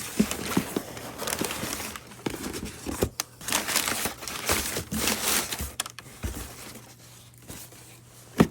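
Packaging crinkling and rustling in repeated handfuls as it is unwrapped, with one sharp knock just before the end.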